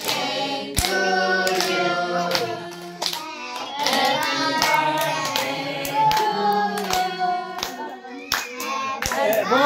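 A group of adults and children singing together, with hands clapping along in a steady beat of about one clap every three-quarters of a second.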